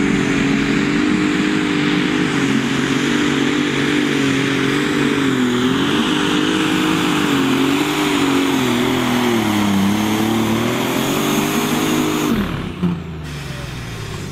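Limited super stock pulling tractor's turbocharged diesel engine running flat out under full load while dragging the weight sled, its pitch wavering up and down. About twelve seconds in the throttle comes off: the pitch drops steeply, there is one short pop, and the engine runs on lower and quieter as the pull ends.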